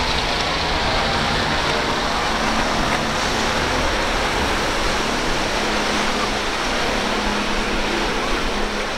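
Outboard-powered center-console boats running at speed through choppy water: a steady wash of spray, surf and wind over a low, even hum from the outboard motors.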